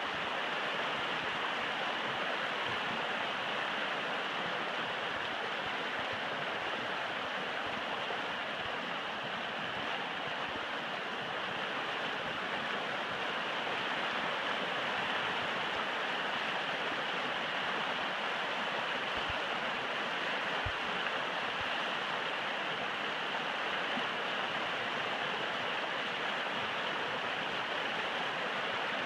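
Shallow, rocky river rushing steadily over stones in riffles.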